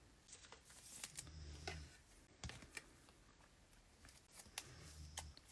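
Faint handling of Bowman Chrome trading cards: soft rustling and a few light clicks as cards are slid and flicked through the hands.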